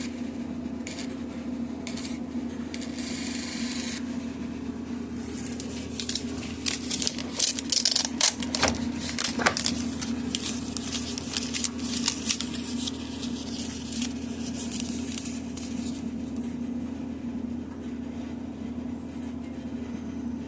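Combustion analyzer's small thermal printer printing out the test results: rapid scratchy ticking from about five seconds in to about sixteen seconds, over a steady low hum.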